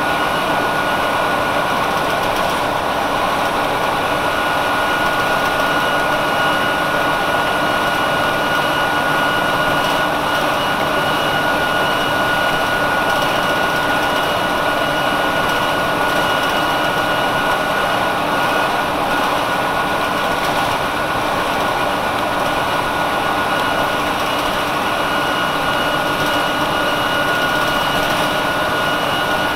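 A NovaBus RTS-06 transit bus's Detroit Diesel Series 50 four-cylinder diesel engine running steadily, heard from inside the bus, with a steady high whine over the engine noise.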